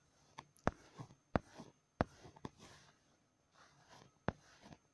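Fingers tapping and swiping on a smartphone's touchscreen, picked up by the phone's own microphone. About five sharp, irregularly spaced taps with softer clicks and faint rubbing between them, and a quieter stretch in the middle.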